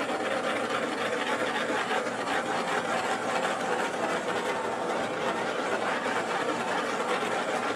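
Handheld butane torch flame hissing steadily as it is swept over wet white acrylic paint to pop surface bubbles.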